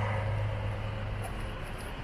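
Idling vehicle engine: a steady low hum that weakens about a second in.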